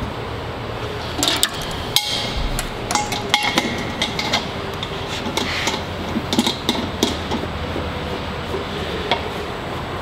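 Stainless-steel hopper being seated on the filler's rotary valve and a tri-clamp fitted around the joint by hand: scattered metal clinks and taps over a steady low hum.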